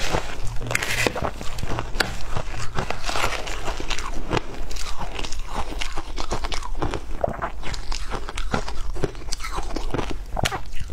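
Close-miked crunching of shaved ice: a metal spoon digging and scraping through a bowl of packed shaved ice, and the ice crunching as it is chewed. There are dense, irregular crackles all the way through.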